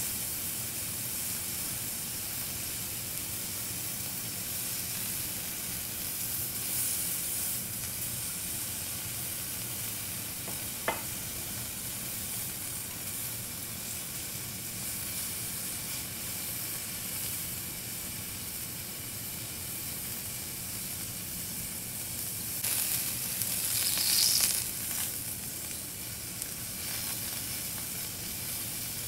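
Skewered liver kebab pieces with tomato, onion and green chilli sizzling on a hot flat iron griddle, a steady frying hiss. A single sharp click about eleven seconds in, and a louder flare of sizzling for a couple of seconds near the end.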